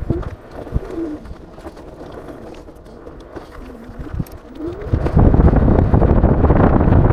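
A pigeon cooing a few times over light outdoor noise. About five seconds in, a loud rush of wind on the action camera's microphone takes over as the electric scooter picks up speed.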